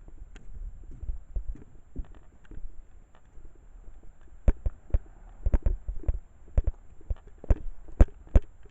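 Wind rumbling on a camcorder's microphone, with a run of sharp, irregular knocks and thumps that become loud and frequent from about halfway through.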